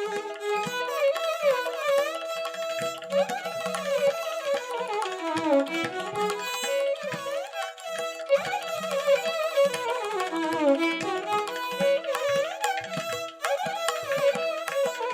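Instrumental Indian classical background music: a melody that glides in pitch over a steady drone, with drum strokes.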